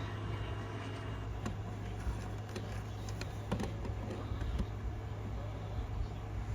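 Scattered light plastic clicks from a cordless phone handset being handled and its buttons pressed, over a steady low hum.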